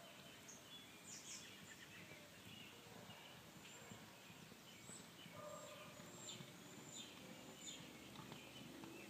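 Faint outdoor birdsong: scattered short, high chirps and calls from several birds over a quiet background hiss.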